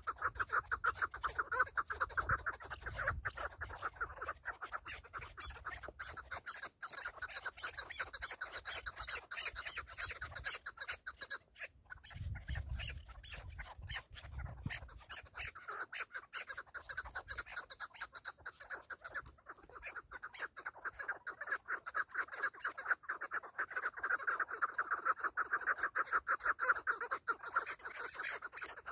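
Chukar partridges calling: a fast, continuous run of repeated chucking notes that swells louder near the start and again toward the end, with a brief low rumble about halfway through.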